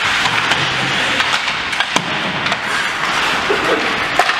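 Game noise in a sports arena: a steady crowd hubbub with scattered sharp knocks and clacks from play.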